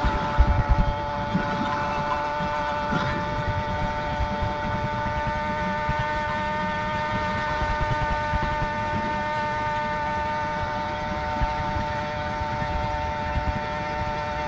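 Small two-stroke engine with a 52 mm single-ring piston and a Master Blaster muffler, running at a steady high pitch while under way, with wind rumble on the microphone.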